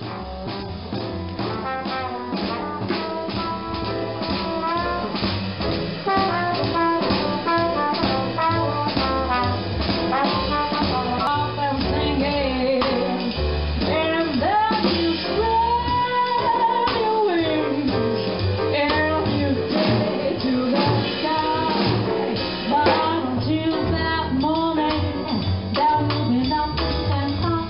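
Jazz music with brass, a singing voice and a drum-kit beat, fading in over the first few seconds.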